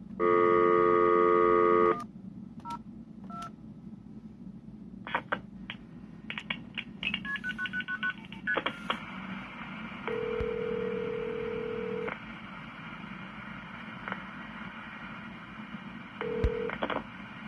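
Telephone call being placed over a phone line: a loud two-second burst of several steady tones, then clicks and short keypad dialing tones, then a two-second ringback tone, with a second ring cut short near the end. A steady low line hum runs underneath.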